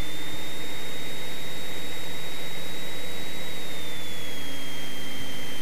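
Cessna 172's engine and propeller heard from inside the cabin while taxiing: a steady drone with a high whine that climbs slightly at the start and drops a little about four seconds in.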